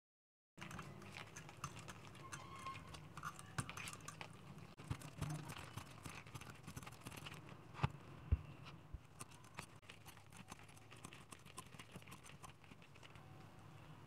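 Quiet handling sounds of gloved hands working a small DC motor's armature: rustling and small scattered metal clicks, starting about half a second in. There are two sharper knocks about eight seconds in.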